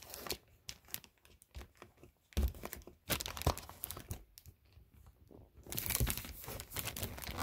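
Plastic bag crinkling and paper sheets rustling as a stuck invoice and advertisement are tugged out of the bag. It comes as irregular crackles that turn dense and continuous near the end.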